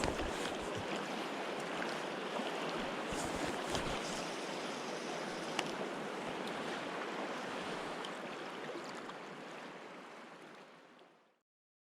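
Steady rushing of river water, with wind buffeting the microphone in low gusts near the start and a few seconds in; it fades out near the end.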